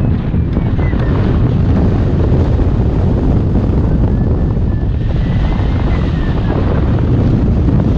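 Airflow buffeting the microphone of a hang glider in flight: a steady, loud low rumble of wind. A faint high whistle drifts slowly up and down in pitch over it.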